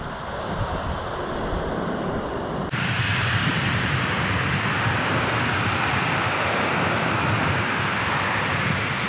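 Lake Michigan surf breaking steadily on a sandy beach, with wind buffeting the microphone; about three seconds in the sound jumps louder and the wind rumble grows.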